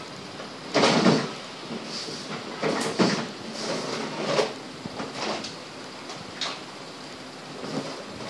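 Someone rummaging while fetching toy blasters: a string of irregular knocks, clatters and rustles, like a cupboard or drawer being opened and things being moved about. The loudest knock comes about a second in.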